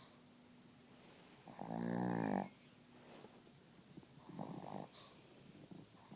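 Chihuahua snoring in its sleep: one long, loud snore about one and a half seconds in, then a shorter, quieter one about four seconds in.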